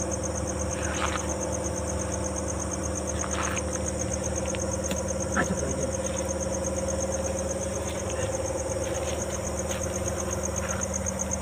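Night insects chirping in a fast, even pulsing trill over a steady low hum, with a few brief faint knocks.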